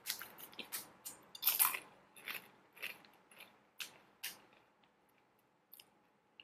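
Crunchy baked seaweed-flavoured animal crackers bitten and chewed with the mouth close to the microphone. Crisp crunches come about twice a second, the loudest about a second and a half in, and they die away after about five seconds.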